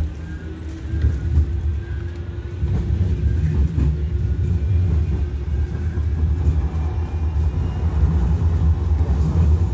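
Low rumble of a Manchester Metrolink tram's wheels and running gear heard from inside the car, growing louder about two and a half seconds in as the tram gathers speed. A faint rising whine from the traction motors can be heard in the first second.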